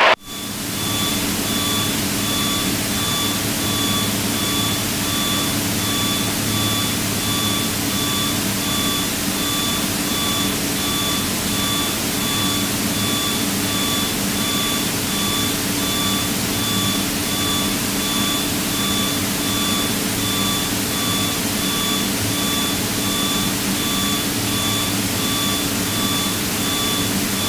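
Steady drone of a Piper PA-32's six-cylinder piston engine and propeller in cruise, heard from inside the cabin, with a high tone pulsing evenly on top.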